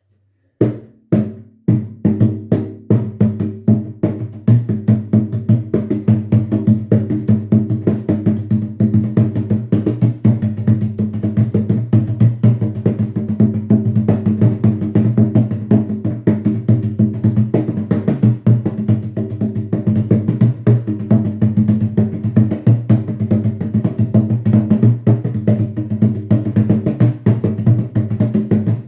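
Atabaque hand drum being played: a few single strokes at first, then a fast, steady rhythm of hand strokes with the drum's low ring sounding under them.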